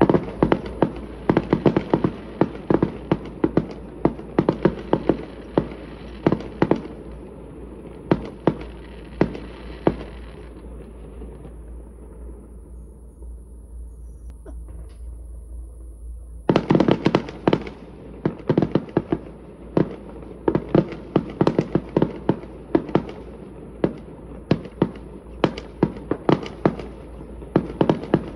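Fireworks display: rapid volleys of sharp bangs. About ten seconds in they thin out and fade to a lull, and some six seconds later a dense barrage starts again suddenly and goes on.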